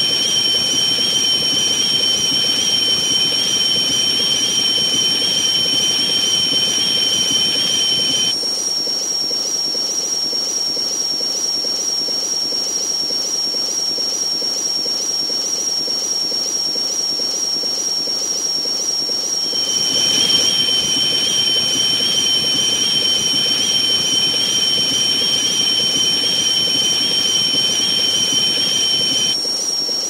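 Steady white-noise hiss with a thin, high whistling tone held throughout. A second, lower whistle and the deeper part of the hiss cut out about eight seconds in, come back about twenty seconds in, and cut out again just before the end.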